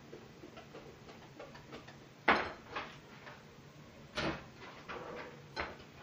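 Kitchen clatter of utensils and dishes: faint light tapping, then a few sharp knocks and clinks, the loudest about two seconds in and another near four seconds.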